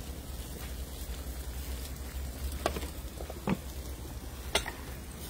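Calabash squash and eddoes curry sizzling steadily in a pan over a wood fire, with three sharp clicks or knocks in the second half.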